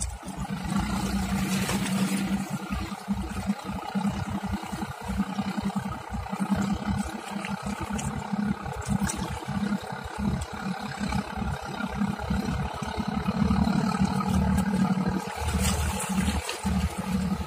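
High-speed passenger ferry's engines running with a steady low hum, heard across the water as the ferry manoeuvres to dock.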